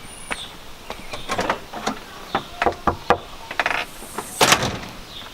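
A series of irregular knocks and clunks, the loudest about four and a half seconds in.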